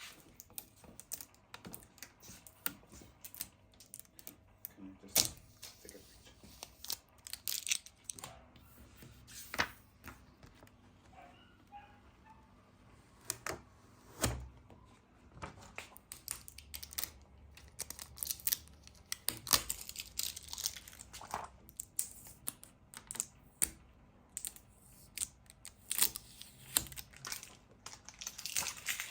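Irregular small clicks and taps with crinkling rustles, the sound of things being handled at close range.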